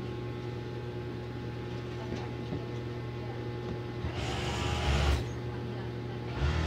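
A steady low hum with several fixed tones, and a person's voice breaking in for about a second some four seconds in and again near the end.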